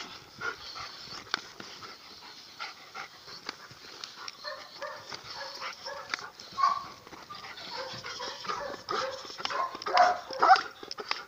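Belgian Malinois-type dog whining and yelping in short, excited calls while it jumps and tugs at a toy. The calls grow louder near the end.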